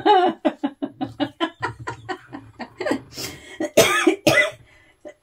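A woman coughing: a quick run of short vocal sounds, then two or three harsh coughs between about three and four and a half seconds in.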